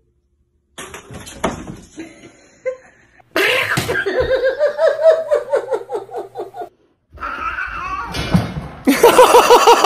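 A person laughing hard in rapid pulsing bursts, one long bout in the middle and another loud bout near the end, with some scattered knocks before.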